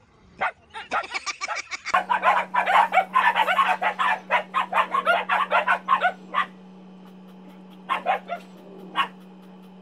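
Dogs barking at each other: a few scattered barks at first, then a dense run of rapid, overlapping barking for about four seconds, then a few single barks near the end, over a steady low hum.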